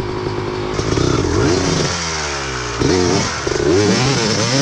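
Two-stroke dirt bike engine revved hard in repeated bursts, its pitch rising and falling over and over, as the rear tyre spins on loose dirt and rock during a climb.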